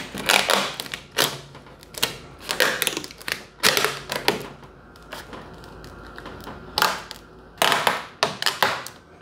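Clear plastic protective film being peeled off car paint and handled, making irregular crackling and crinkling. It quiets for about two seconds past the middle, then crackles again.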